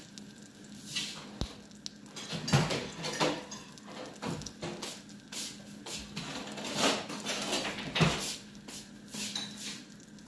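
Beaten egg with chopped spring onion leaves frying in hot oil in a pan, sizzling with irregular pops and crackles, the strongest a couple of seconds in and about eight seconds in.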